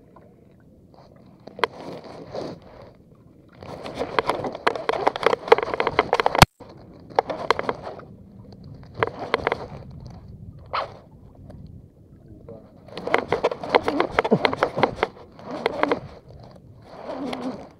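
Baitcasting reel and jigging rod being worked, giving repeated bursts of rapid clicking and scraping a second or few long, with one sharp click about six seconds in.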